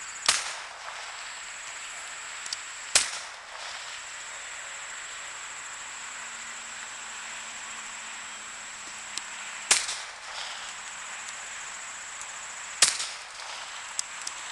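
Four handgun shots fired singly at irregular intervals, each a sharp crack with a short tail, with a few faint clicks between them.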